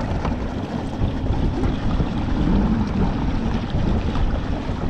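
Wind buffeting the microphone in a steady rumble, with water lapping against the hull of a fishing kayak under way on choppy water.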